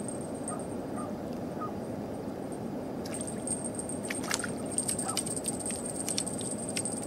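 Water splashing and sloshing in short, irregular bursts, starting about three seconds in, as a fish breaks the surface, over a steady low rushing background.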